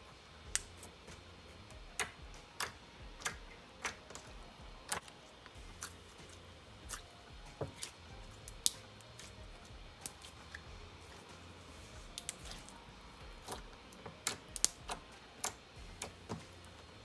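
Pink metallic slime with fimo fruit slices being pressed, poked and stretched by hand, giving soft irregular clicks and pops about one or two a second.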